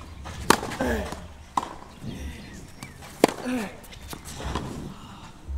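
Tennis rally: sharp racquet strikes on the ball about half a second in, at about one and a half seconds and again after three seconds, each followed by brief voices.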